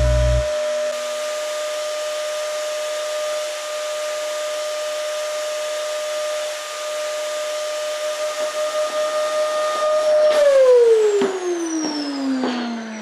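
Yellow canister vacuum cleaner running with a steady whine, then switched off about ten seconds in, its motor's pitch falling as it winds down, with a few knocks of handling.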